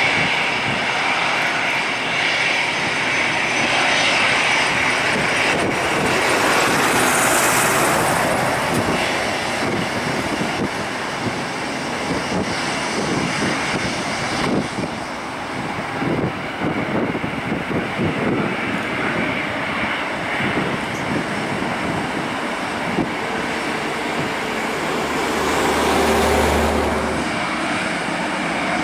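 Airbus A320-214's two CFM56 turbofan engines running at low taxi power as the airliner taxis: a steady jet rumble with a high fan whine over it.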